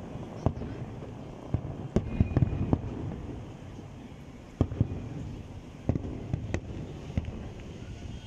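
Fireworks shells bursting in irregular bangs over a steady low rumble, with a quick cluster of bangs about two seconds in and more single bangs spread through the rest.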